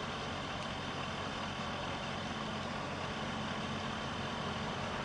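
An engine idling steadily: a low, even hum under a constant hiss, unchanging throughout.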